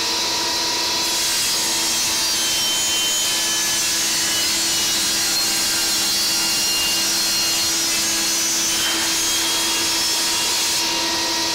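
Metabo HPT 36V MultiVolt brushless 10-inch table saw running on battery power and ripping a thin strip off a plywood board. The motor holds a steady hum, and the hiss of the blade cutting the wood comes in about a second in and lasts until near the end. It is heard with the microphone right up against the saw.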